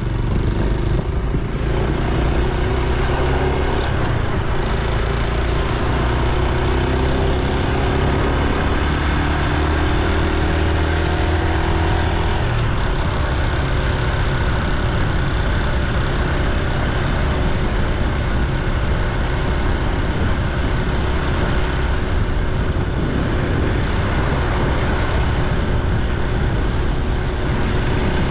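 Honda Super Cub C125's single-cylinder four-stroke engine and exhaust while riding, its pitch rising gradually through the first dozen seconds, then holding steady. Steady wind and road noise run underneath.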